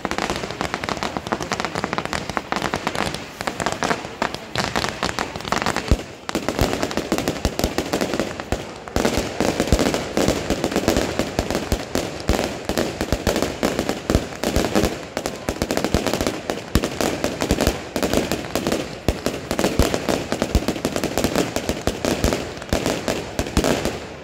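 Firework batteries firing nonstop: dense, rapid crackling and popping with many small bangs, easing briefly about six seconds in and again near nine seconds before picking up again.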